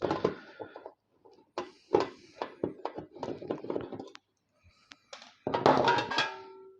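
Metal parts of a PC power supply knocking and clattering as it is handled and stripped by hand, with a louder clatter about five and a half seconds in where a struck metal piece rings briefly.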